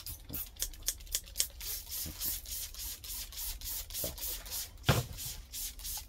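Hand trigger spray bottle pumped again and again, misting a diluted bleach solution onto a potted orchid to disinfect it. It makes a quick run of short hissing sprays, about two or three a second, with one louder knock about five seconds in.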